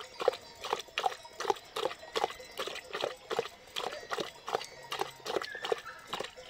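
A dog lapping water with loud slurps, at a steady rhythm of about two and a half laps a second, stopping near the end.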